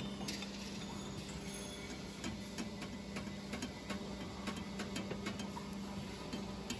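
Conveyor roller bearing assembling machine humming steadily, with a run of light, evenly spaced ticks, about three a second, in the middle as its chuck closes on a steel roller tube.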